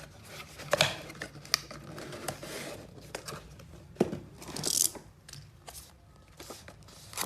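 Close handling noise of small items and packaging: crinkling and rustling with scattered sharp clicks and taps, and a louder rustle about five seconds in.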